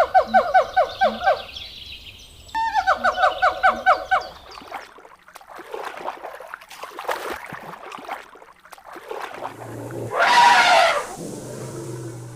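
Domestic fowl calling: two rapid trilled calls of quick repeated notes, falling slightly in pitch, the second about two and a half seconds after the first. Scattered rustling sounds follow, then one loud harsh call or burst about ten seconds in.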